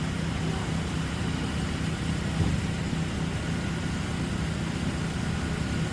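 A steady low rumble like an idling engine, unchanging throughout.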